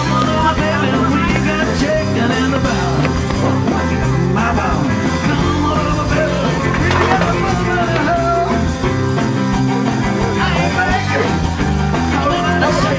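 Rock music with a singing voice, loud and steady.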